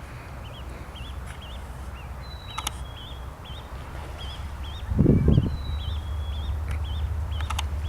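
A bird calling with a steady series of short, high chirps, each rising then falling, about two or three a second, over a low steady rumble. A loud low bump about five seconds in, and a few faint clicks.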